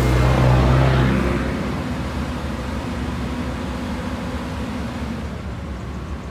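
A heavy diesel engine going by, loudest in the first second and then fading to a steady low rumble.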